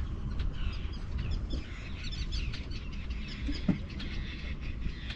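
Birds chirping in quick short calls over a steady low rumble.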